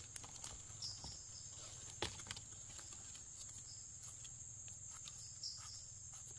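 Steady high-pitched insect drone, with a few faint clicks and rustles and a couple of short high chirps, about a second in and near the end.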